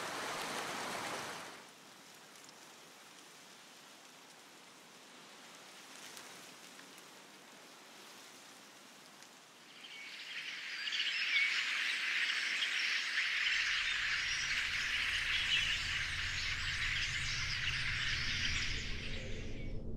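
Water-like rushing noise that cuts off about a second and a half in, then quiet outdoor ambience. About halfway through, a dense, high chirring chorus of small creatures comes in, and a low steady musical drone joins it a few seconds later.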